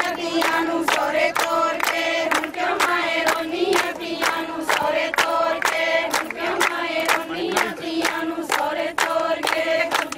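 A group of women singing a Punjabi folk song together, holding long notes over steady rhythmic hand-clapping, about two to three claps a second, as in giddha.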